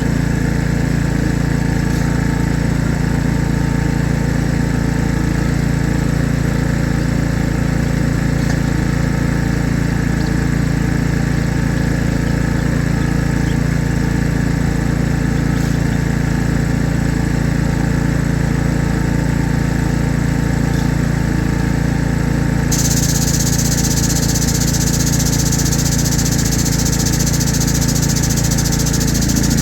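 An engine running steadily at one constant speed, with a high-pitched hiss that comes in abruptly about three-quarters of the way through.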